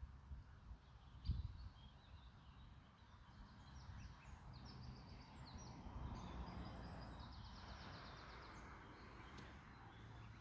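Faint bird calls: short chirps, then rapid trilled notes over a low background rumble, with a single soft thump about a second in.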